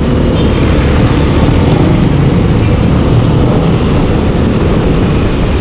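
Heavy wind buffeting on a GoPro Hero 8's microphone, not yet covered with tape, while riding a Yamaha NMAX scooter: a loud, steady rumble that cuts in suddenly.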